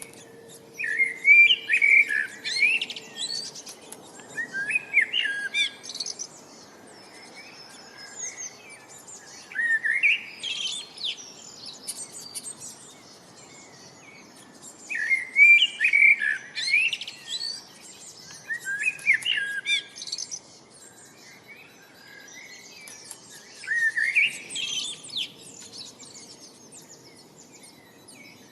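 A songbird singing in short, varied phrases of chirps and trills, each a second or two long and repeated every few seconds.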